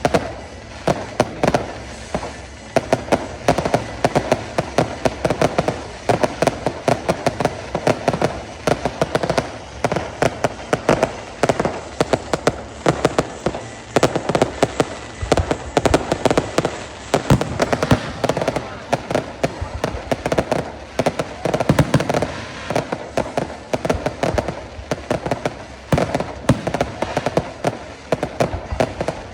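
Fireworks going off in a dense, continuous barrage of sharp bangs and crackles, several a second.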